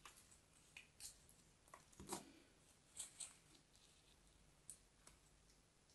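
Kinetic sand being scraped and cut with a small blade against a plastic mould: faint, scattered crisp scratches and ticks, the clearest about two seconds in and a pair about a second later.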